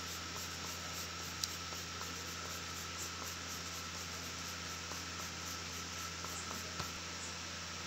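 Steady hiss and low hum, with faint quick scratching of a colored pencil shading on paper, several strokes a second, that stops about seven seconds in. Two faint ticks.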